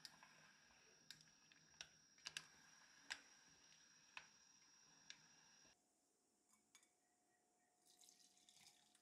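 Faint, scattered clicks of a wooden spatula against a pot while peach slices in syrup are stirred. Near the end, a soft faint patter of syrup and peaches poured into a metal sieve.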